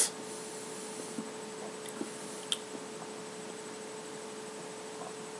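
Room tone: a steady low hum over faint hiss, with one small click about two and a half seconds in.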